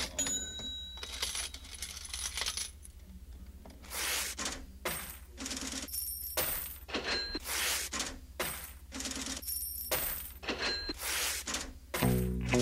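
A run of short, sharp metallic clinks, some ringing briefly, at about two a second.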